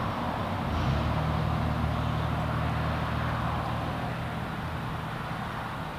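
Motor vehicle engine hum with a rush of road noise that swells at the start and slowly fades over a few seconds.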